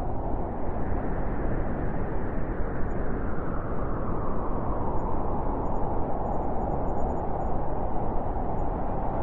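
Blizzard wind blowing steadily as a dense, low rushing noise. One gust's tone slowly falls over the first several seconds, and the wind swells again near the end.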